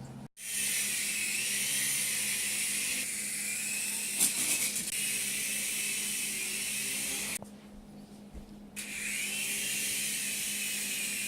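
Small electric motors and spinning rotor blades of a Sky Rover indoor toy helicopter running with a high whine. It cuts out about seven seconds in and spins back up a second or so later, rising in pitch.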